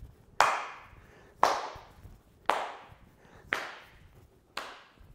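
Hand claps struck in a steady rhythm while the arms swing: five sharp slaps about one a second, each dying away quickly with a short room echo.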